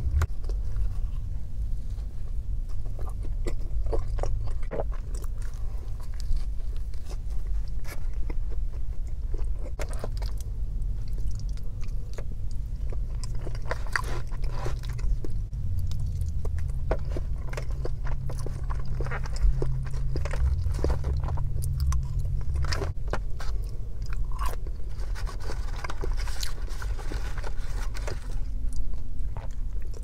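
Close-miked chewing and biting of macaroni and cheese and a biscuit, with many small wet mouth clicks, over a steady low rumble.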